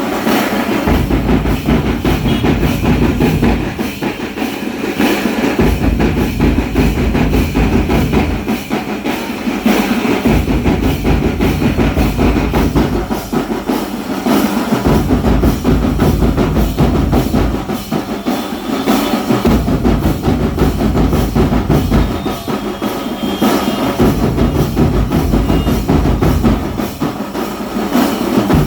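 Music with drums and a heavy bass that cuts out for about two seconds every five seconds or so, in a repeating cycle.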